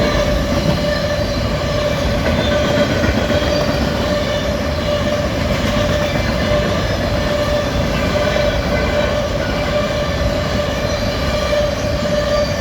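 Freight train cars rolling past close by: a continuous rumble of wheels on rail, with a steady high squeal ringing through it.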